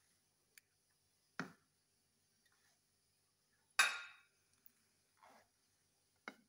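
Kitchen utensils knocking and clinking against a metal pan while thick custard is stirred with a spatula and scooped out with a metal spoon: a few scattered knocks, the loudest a ringing clink a little past the middle.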